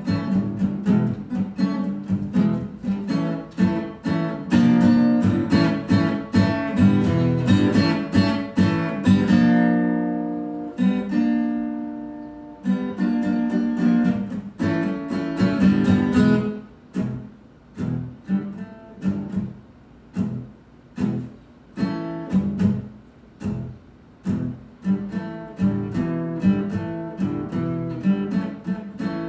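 Acoustic guitar being strummed in chords. About ten seconds in, one chord is left ringing and dies away, then the strumming picks up again and turns lighter and more spaced out.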